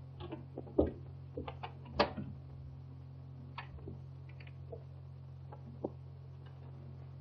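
Door knob and latch clicking as a panelled door is opened, the loudest click about two seconds in, followed by a few soft footsteps and small knocks. All of it is faint over the steady low hum of an early sound-film track.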